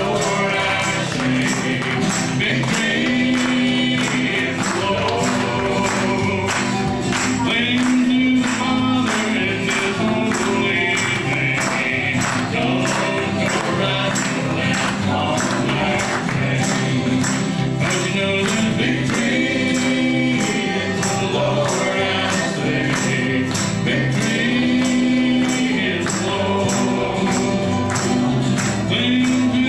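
Live country gospel band: strummed acoustic guitars and several voices singing together, over a steady bright beat about twice a second.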